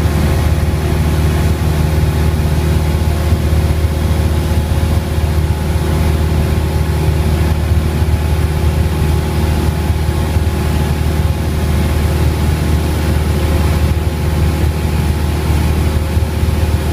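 Cessna 172M's four-cylinder Lycoming O-320 engine and propeller running steadily in cruise flight, a loud, even low drone heard from inside the cabin.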